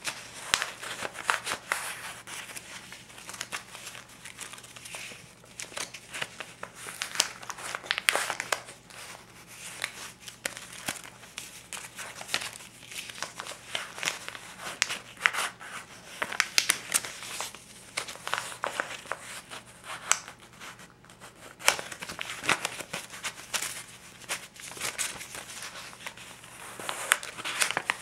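A stack of US paper bills, $20s and $50s, handled by hand: flipped, rubbed and crinkled, giving crisp paper rustles and sharp snaps in irregular flurries.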